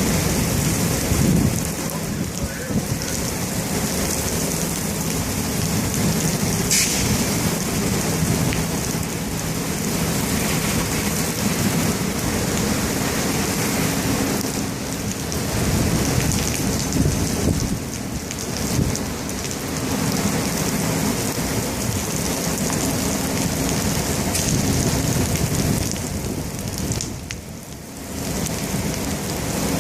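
Heavy rain pouring down in a severe thunderstorm, with thunder rumbling underneath. The downpour eases briefly near the end, then picks up again.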